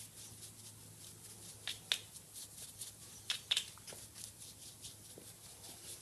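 Dry soft-bristle brush sweeping over the metal plate and housing of a brake lathe, a run of light brushing strokes with a few sharper scrapes about two and three and a half seconds in.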